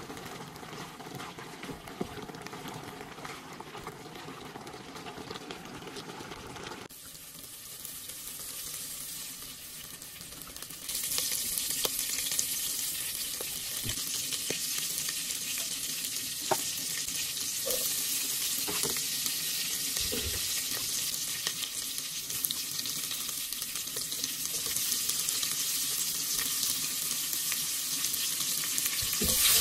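Pork curry bubbling in a pot as a wooden spoon stirs it; about seven seconds in this gives way to hot oil, which breaks into a loud, high, steady sizzle about eleven seconds in as cumin seeds fry, with a few light spoon ticks. Near the end sliced onions go into the oil and the sizzle gets louder.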